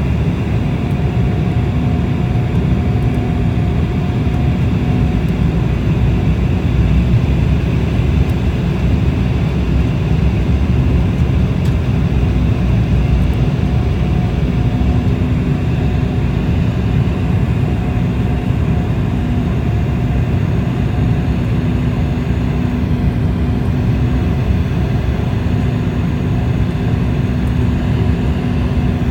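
Cabin noise of an Embraer 190 jet airliner on approach to landing: a steady low rumble of airflow and its GE CF34 turbofan engines, with a faint steady hum running through it.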